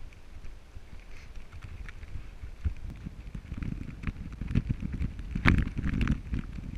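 Footsteps on a rocky dirt trail picked up by a body-worn camera, heard as a low rumble of handling noise with irregular knocks and scuffs. The knocks get busier and louder in the second half, the biggest one a little past five seconds in.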